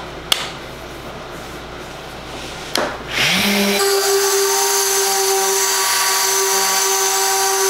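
A few sharp clicks, then a random orbital sander switched on about three seconds in. It spins up and runs steadily, sanding an end-grain cutting board with 220 grit to knock down grain raised by wetting.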